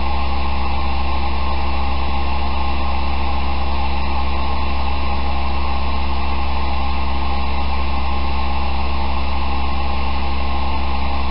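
Airblown inflatable's electric blower fan running steadily: a constant low hum with an even whir that does not change.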